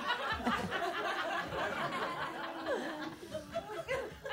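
Audience laughing and chuckling after a punchline, gradually dying down.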